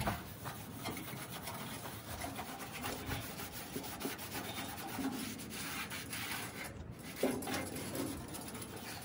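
Acetone-soaked cloth rag rubbing and wiping over the steel of a 1969 Mustang fender, a steady scuffing sound. This is the cleaning wipe that neutralises the fast-etch coating before rust encapsulator goes on.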